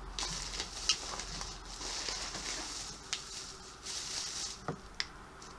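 Plastic packaging rustling and crinkling in short bouts while fidget toys are handled, with a few light clicks in between.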